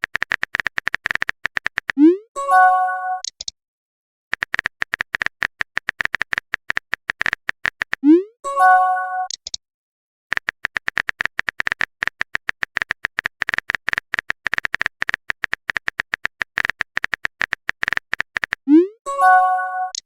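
Chat-app typing sound effect: runs of rapid keystroke clicks, each run ending in a short rising swoosh and a chime as a message is sent. This happens three times, about 2, 8 and 19 seconds in.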